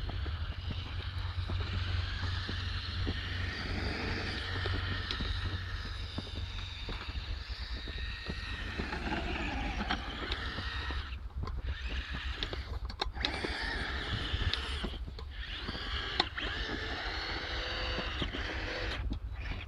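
Electric motor and drivetrain of an Axial Wraith Spawn RC rock crawler whining as it churns through snow, the pitch rising and falling with the throttle and cutting out briefly several times in the second half. A steady low rumble runs underneath.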